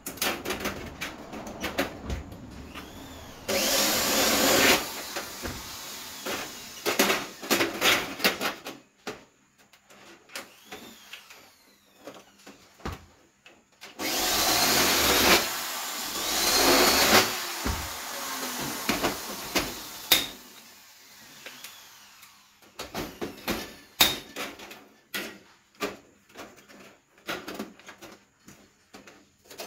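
Cordless drill running on aluminium floor slats in two bursts: a short one about three and a half seconds in and a longer one of about three seconds halfway through, which starts with a rising whine. Between and after the bursts come light clicks and taps of aluminium slats being pressed into place by hand.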